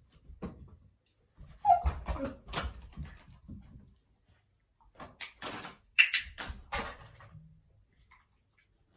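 Border collie whimpering in two short bursts, about two seconds in and again around six seconds in, the second with sharper clicks.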